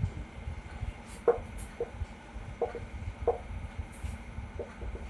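Handwriting: a series of short scratching strokes of a pen or marker, several in a row, over a low steady rumble.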